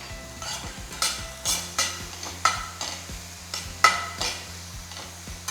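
Sliced mushrooms, baby corn and onion being stirred and scraped around a pan as they sauté in butter, in uneven strokes about every half second, the loudest nearly four seconds in.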